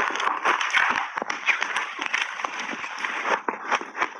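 Shaved ice being crunched in big bites, heard close up as a dense crackle of many small crunches. A spoon scoops the ice from a plastic tub.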